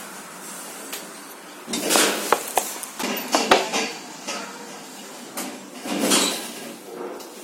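A lift's automatic sliding glass doors moving, with a rattling slide and several sharp clicks and knocks about two seconds in. They slide again, and end with a soft thud, about six seconds in.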